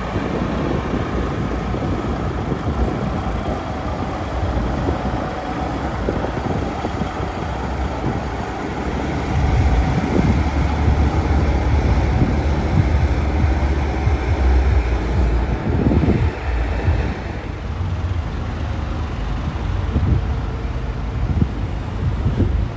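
Heavy truck running and moving nearby. Its deep low rumble grows stronger about nine seconds in and eases off after about seventeen seconds.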